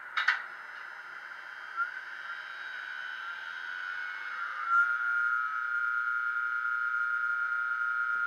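ESU LokSound DCC sound decoder in a model Siemens Vectron electric locomotive, played through a small speaker, running its electric-loco start-up: a couple of sharp clicks, then a hiss and a whine that rises in pitch and settles into a steady high hum about halfway through.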